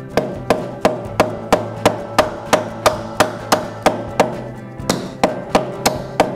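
Soft-faced mallet repeatedly striking a 3D-printed PLA lamp shade, about three blows a second, to drive a tight pressure-fit coupler ring into its hole. Each blow is a sharp knock with a brief ring after it, with a short pause a little past the middle.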